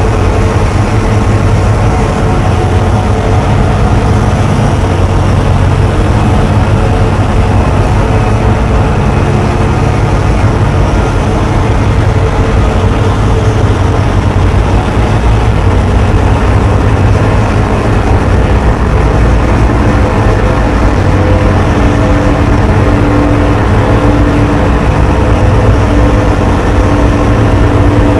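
Loud, unbroken harsh noise from amplified contact microphones on an angle grinder cutting through a car tire and a calculator scraped on sandpaper. A steady low hum sits underneath, and a held mid tone grows stronger about three quarters of the way in.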